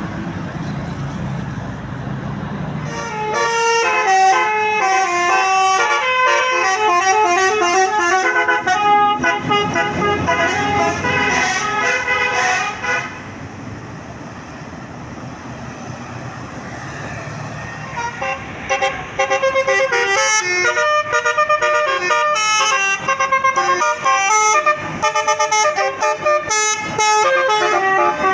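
Basuri multi-tone 'telolet' bus air horn (12-note) playing a quick stepping melody for about ten seconds, over bus engine and traffic noise. After a pause of engine rumble it starts again with a run of short, choppy notes.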